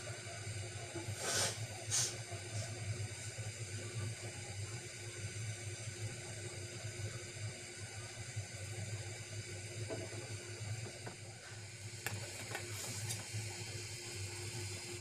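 Steady hiss of an aluminium pot of rice boiling on a gas burner. Two sharp clinks about a second and a half in, then fainter ticks near the end, fit a steel spoon knocking against the pot.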